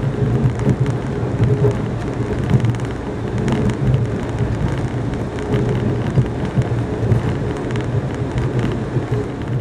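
Steady rumble of a moving passenger train heard from inside the coach: wheels running on the rails with a constant low hum and scattered light clicks.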